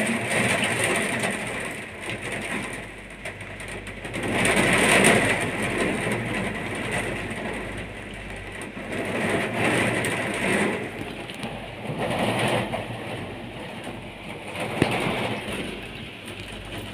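Rain and gusting wind beating on a cable car gondola, a steady rushing that swells and eases every few seconds.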